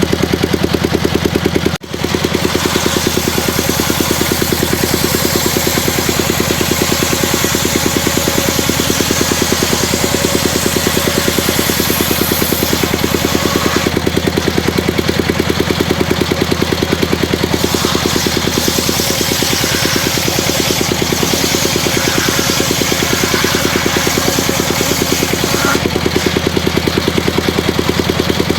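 Engine driving a home-built circular saw rig, running steadily with an even firing pulse and a noisy whir above it, broken by a short dip about two seconds in.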